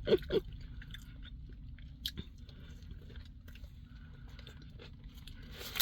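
Faint close-up chewing of cheesy tots, with small wet mouth clicks. Paper rustling starts near the end.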